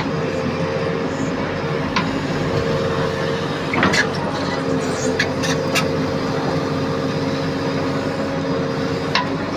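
JCB backhoe loader's diesel engine running steadily, with a few sharp metallic knocks, a cluster of them about four seconds in.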